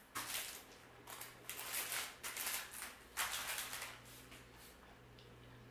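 Crisp crackling and crumbling of a frosted toaster pastry being broken apart and bitten, in about four short bursts over the first four seconds.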